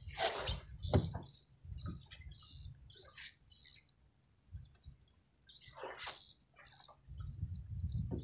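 Bottom longline being hauled in by hand over a small boat's bow: a run of short, irregular clicks and scrapes of the line and gear being handled.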